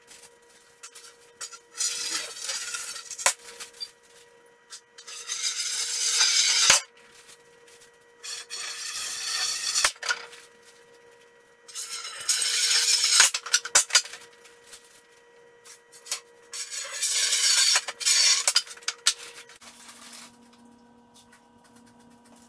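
Wooden boards scraping as they are slid across a concrete floor, in five bursts of a second or two each, a couple of them ending in a sharp knock as a board is set down. A steady faint hum runs underneath and drops in pitch near the end.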